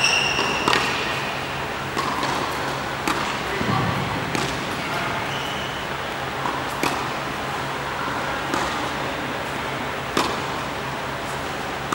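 Tennis ball struck by rackets and bouncing on an indoor hard court: sharp pops every one to two seconds, ringing briefly in the hall, over a steady low hum. There are a couple of short high squeaks, near the start and about five seconds in.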